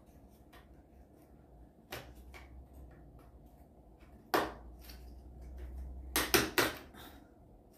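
Small parts of a miniature house kit being handled and fitted together on a tabletop: a few light clicks and knocks, the loudest about four and a half seconds in, then a quick run of three about six seconds in.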